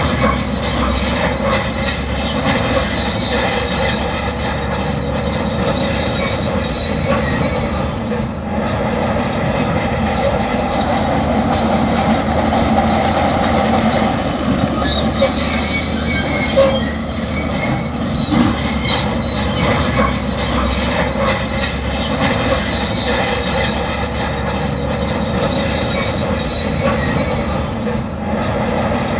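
Shantui crawler bulldozer working under load as it pushes sand: a steady diesel engine with the clank and high squeal of its steel tracks, the squeal swelling and fading several times.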